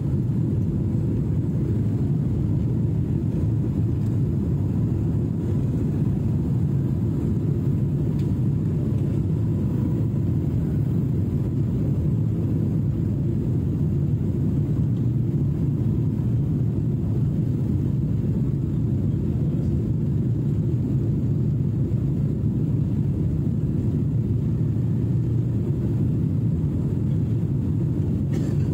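Steady low rumble of a jet airliner's engines and rushing airflow as heard inside the cabin, on descent toward landing with the flaps extended.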